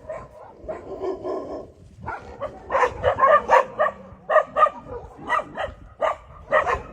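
Dogs barking in short, pitched yaps, a couple a second, from about two seconds in.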